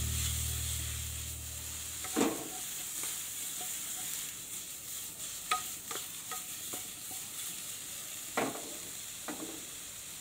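Pork belly, shiitake mushrooms and shallots sizzling in a wok as they are stir-fried, with a wooden spatula scraping and knocking against the pan about half a dozen times.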